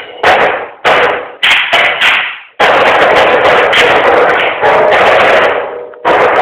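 Live percussion ensemble of drums and mallet instruments playing together: three loud accented hits about half a second apart, then a steady stretch of playing from about two and a half seconds in, which breaks off briefly near the end and starts again.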